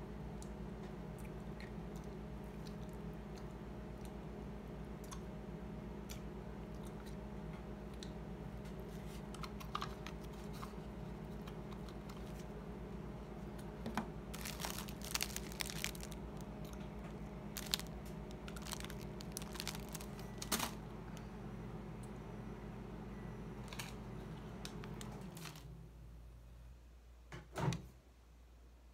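A steady machine hum that cuts off about 25 seconds in, under scattered crunches, clicks and crinkles of eating with a plastic spoon amid plastic wrap, then one thump near the end.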